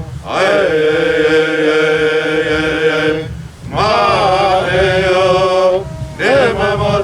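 A single voice chanting long held notes in three phrases, with short breaks between them.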